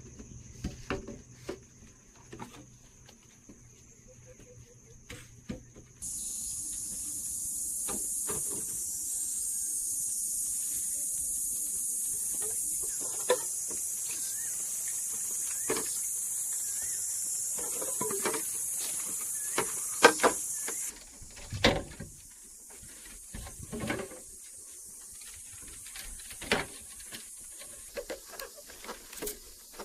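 Scattered knocks and scrapes of hand work with primitive tools, under a steady high hiss that starts suddenly about six seconds in and drops away sharply around twenty-one seconds.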